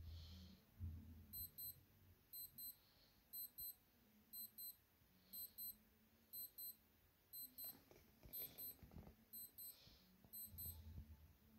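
Faint electronic alarm beeping in pairs of short, high beeps, about one pair a second. About two-thirds of the way in there is some rustling from the cardboard box being turned in the hand.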